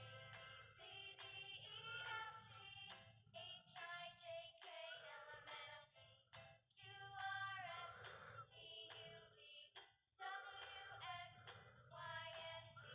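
Faint background music: a song with a sung melody over a light, regular beat.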